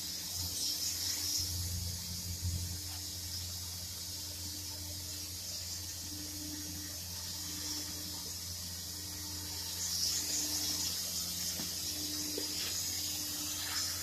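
A steady hiss with a low hum underneath. The hiss swells briefly about half a second in and again about ten seconds in.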